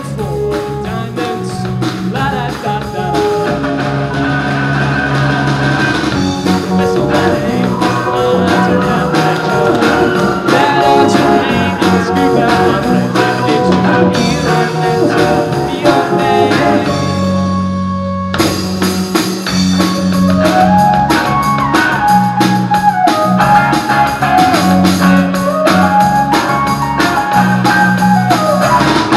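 A band playing a song live on guitar and drum kit, breaking off briefly about two-thirds of the way through before starting up again.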